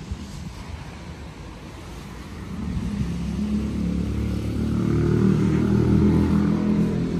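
A motor vehicle passing close by. Its engine rumble builds from about a third of the way in, is loudest near the end, then starts to fade.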